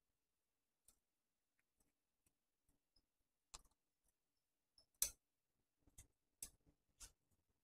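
Near silence with a handful of faint, sharp clicks and taps as hands handle a bouquet of artificial roses, its wired stems and wrapping knocking together; the loudest click comes about five seconds in.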